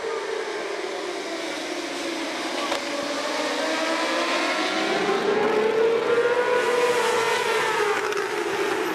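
A pack of J-GP2 class racing motorcycles at full throttle, their engines revving high with many overlapping pitches rising and falling as the riders shift and brake. The sound grows louder past the middle.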